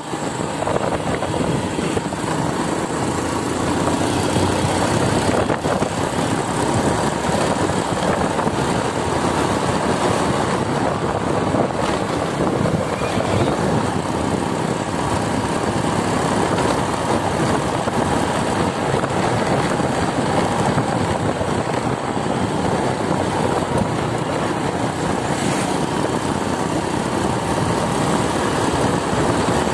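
Motorcycle riding at a steady pace: a constant rush of wind on the microphone and road noise, with the engine running underneath.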